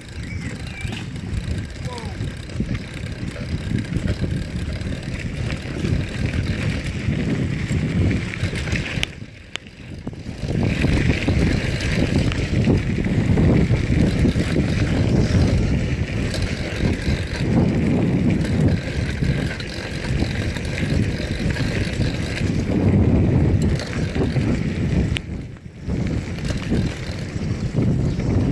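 Bicycle rolling fast over a dirt and gravel path: rumbling tyre noise with wind rushing over the microphone. The noise drops away briefly twice, about nine and twenty-five seconds in.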